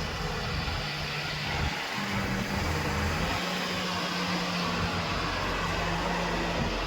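Heavy diesel engine of working earthmoving machinery running steadily, its pitch shifting a few times, around two seconds in and again about a second later.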